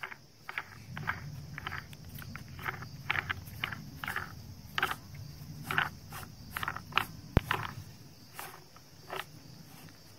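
Steel collar on a treehouse bolt being turned by hand and threaded into the counterbore in a tree trunk: short scraping rasps, roughly two a second, with a sharp click about seven and a half seconds in. A steady high insect drone runs behind.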